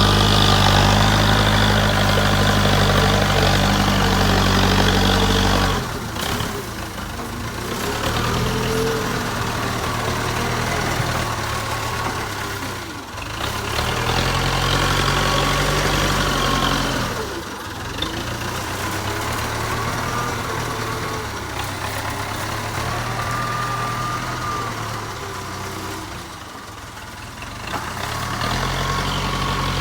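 JCB 3CX backhoe loader's diesel engine running steadily, dipping in level several times, with a whine that rises and falls in pitch over it.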